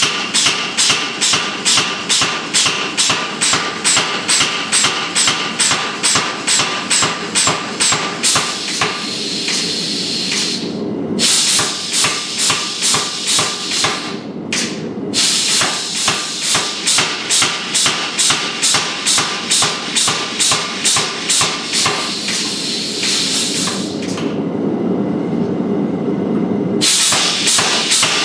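Hand hammer striking hot steel on an anvil in a steady rhythm of about three blows a second, each blow ringing. Twice the hammering stops for a few seconds of steady rushing hiss.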